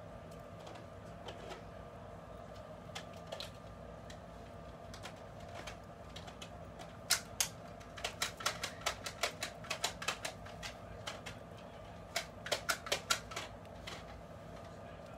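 Quick light clicks and taps, several a second, in two runs starting about seven and about twelve seconds in, over a faint steady hum.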